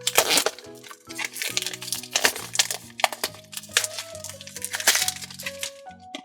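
Crinkly wrapping of a blind-pack toy being crackled and torn open by hand, in irregular sharp crackles, over background music.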